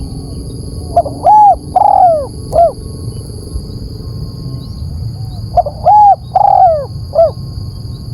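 Spotted dove (tekukur) cooing loudly: two calls about four seconds apart, each a short phrase of four or so falling coos, used as a lure call.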